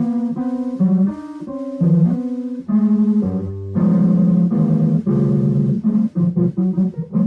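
Instrumental music: a line of pitched notes over a bass part, changing every half second or so. It turns fuller and denser about four seconds in.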